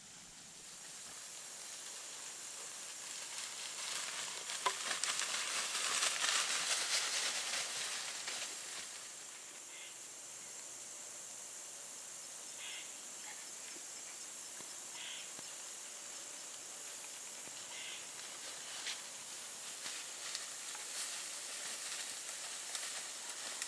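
A steady high hiss that swells to its loudest about five to eight seconds in and eases off by about nine seconds, with a few faint short rustles later on.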